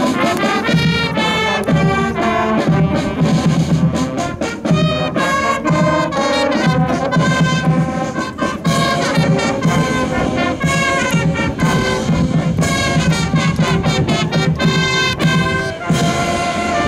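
Brass band music playing a lively tune of many quick notes over a steady beat.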